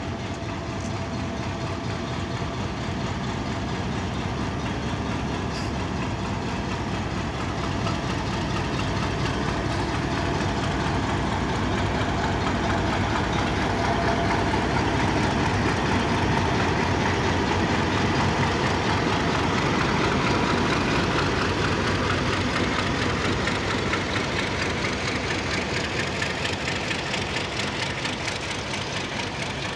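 Pakistan Railways HBU-20 diesel locomotive running as it rolls slowly past at close range. It grows louder as the engine compartment goes by, then eases off a little as the coaches follow.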